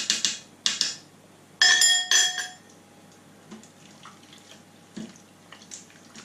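A spoon clinking in a stainless steel Instant Pot inner pot while stirring, stopping just after the start. Then come two ringing metal knocks of spoon on pot, about one and two seconds in, the second much louder. After that only faint small clicks follow.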